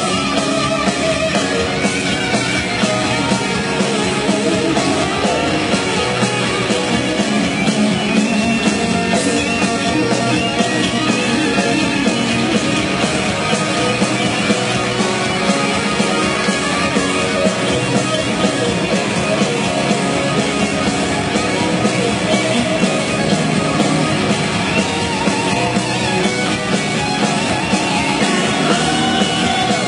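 Live rock band playing loud in an arena, electric guitars to the fore over drums and bass.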